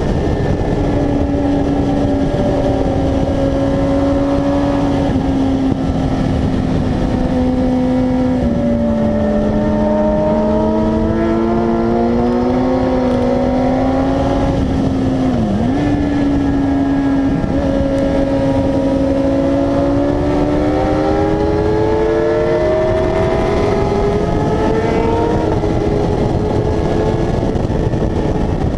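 Motorcycle engine at track speed, heard from on board: its pitch climbs under acceleration and drops back several times as the rider shifts and brakes for corners, with a sharp dip about halfway. Steady rush of wind and road noise underneath.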